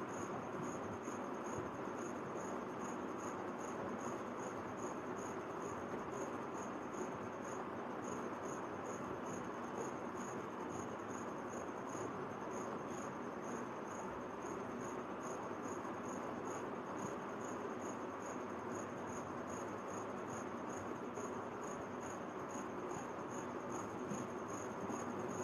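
A cricket chirping steadily, a high chirp repeating evenly several times a second, over a steady background hiss of room noise.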